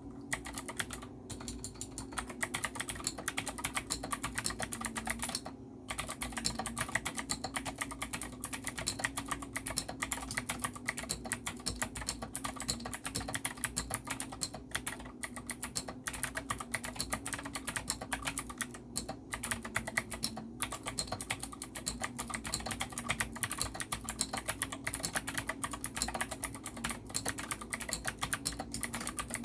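Fast typing on a NINJA87 mechanical keyboard with clicky Gateron Green switches, their springs lubed with Shin-Etsu 1000 silicone oil: a dense, continuous run of crisp key clicks, with a brief pause about six seconds in.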